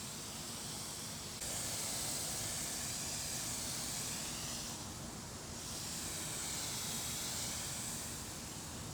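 Herbicide sprayer nozzle hissing as it sprays. It starts about a second and a half in, eases off briefly around the middle and picks up again, fading near the end.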